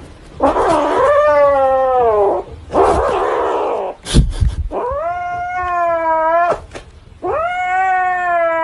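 A domestic cat yowling in four long, drawn-out calls that bend in pitch, with a low thump about halfway through.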